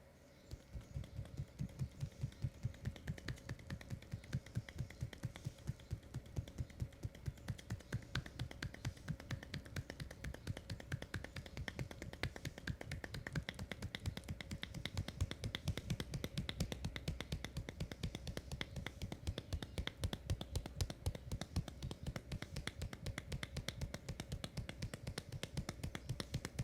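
Hands tapping rhythmically on a leg in a percussive massage: a steady run of muffled slaps, about three a second at first, coming faster and less evenly in the second half.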